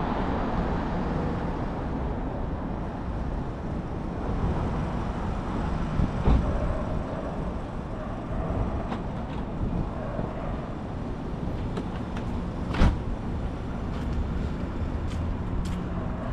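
Downtown street ambience: steady rumble of passing road traffic, with a sharp knock about six seconds in, a louder one near thirteen seconds, and a few lighter clicks near the end.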